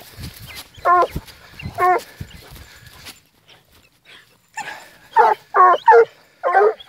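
Griffon bleu de Gascogne hounds giving tongue: short, pitched bays, one about a second in and another a second later, then a quick run of about four near the end. The hounds bay as they work a wild boar scent line on the leash.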